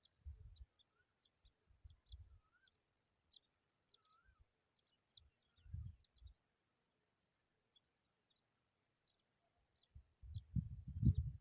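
Faint, scattered bird chirps and a few short gliding calls over a steady high tone, with low thumps and bumps that get louder near the end.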